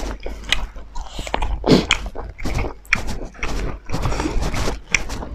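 Close-up eating sounds of two people chewing and smacking their lips over rice, dal and pork curry eaten by hand, a run of short, irregular wet clicks.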